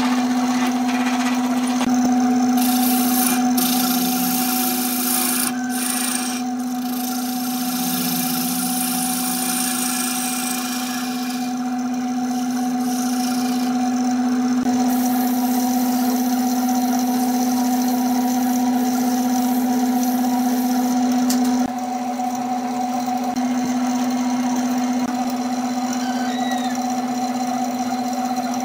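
Burt wood lathe running with a steady motor hum, while a hand drill with a cutting bit bores into the neck of the spinning wooden vase, its rough cutting noise coming and going through the first ten seconds or so. The overall level drops slightly a little past twenty seconds.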